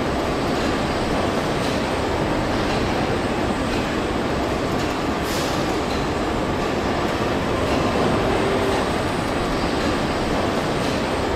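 Steady mechanical rumble and hiss of car assembly-line machinery, with faint scattered clicks and a brief high hiss about five seconds in.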